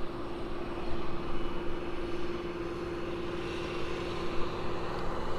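Steady engine drone of a farm tractor working the field, one even low hum over a low rumble.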